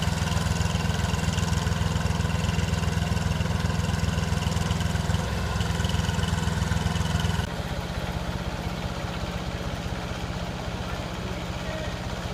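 Engine running steadily at a constant speed, then dropping abruptly to a quieter running note about seven and a half seconds in.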